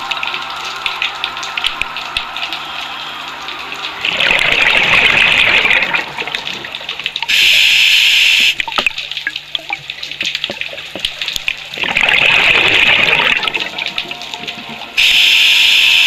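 Scuba diver breathing through a regulator, heard underwater: twice a rushing gurgle of exhaled bubbles, each followed by the short, sharp hiss of an inhale through the demand valve, about eight seconds per breath.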